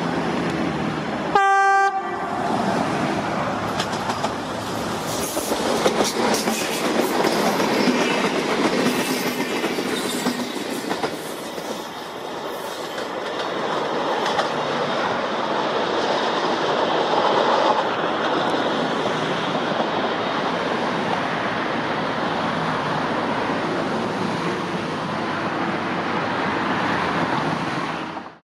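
A Renfe UT-440 electric multiple unit sounds one short horn blast about a second and a half in, then runs past with a steady rumble of wheels on rail and a rapid clatter of clicks over the rail joints and points.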